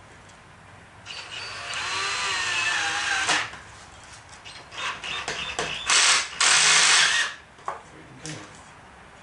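Power drill pre-drilling screw holes in a wooden skirt: one run of about two seconds with the motor pitch rising and wavering, then several shorter bursts, the last ones the loudest.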